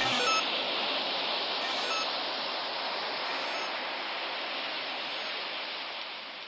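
A steady rushing hiss of noise from the ambient soundtrack, slowly fading out.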